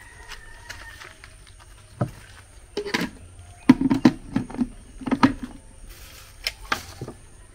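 Handling clicks and knocks as an electric blender is set up, its jar fitted and its plug pushed into a wall socket. This is a quick irregular run of sharp knocks with no motor running yet.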